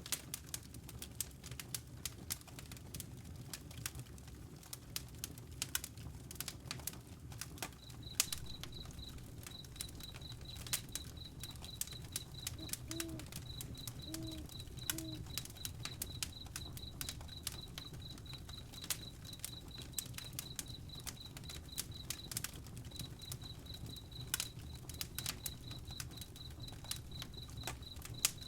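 Wood campfire crackling, with frequent sharp pops and snaps over a low steady rumble of flame. From about eight seconds in, a high, rapid chirp pulses steadily, about five times a second, pausing briefly twice.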